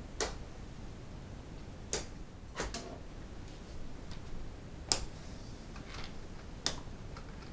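Footsteps and the taps of a walking cane on a hard floor: about half a dozen sharp taps at uneven intervals, two louder ones in the second half.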